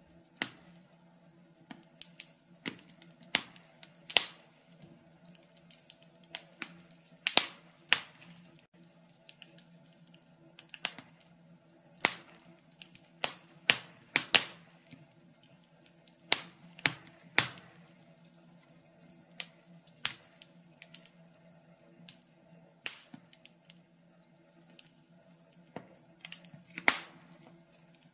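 Logs burning in a fireplace, crackling with irregular sharp pops and snaps over a faint steady low hum.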